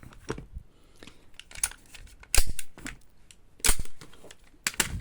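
Airsoft pistols being handled and set down on a hard surface: a handful of separate knocks and clacks, the loudest about two and a half seconds in.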